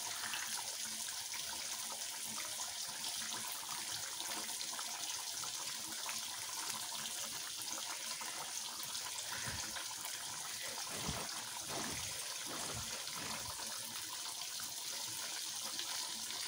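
Fish frying in oil in a pan, giving a steady sizzle, with a few soft knocks from about ten seconds in.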